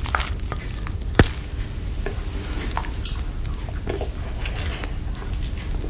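Close-miked wet mouth sounds: licking and sucking on a chocolate lollipop coated in whipped cream, with scattered wet smacks and clicks and one sharper click about a second in.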